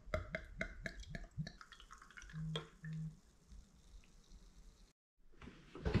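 Drink glugging out of a glass bottle into a tilted glass: a quick run of gurgles over the first second and a half. Two short low buzzes follow about half a second apart, and a brief rustle comes near the end.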